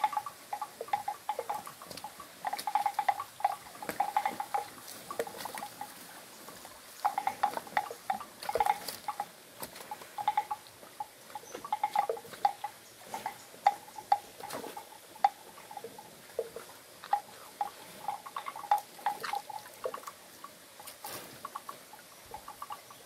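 Water buffalo drinking from a shallow stream: wet slurping and sucking sounds in quick, irregular gulps.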